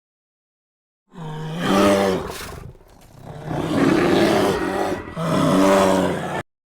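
A large animal's call, three long loud cries in a row with a low pitched core. It starts about a second in and cuts off abruptly near the end.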